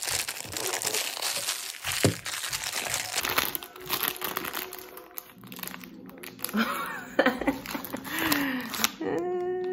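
A crinkly plastic snack bag of Cheetos being torn open and crumpled in the hands, with a short laugh near the end.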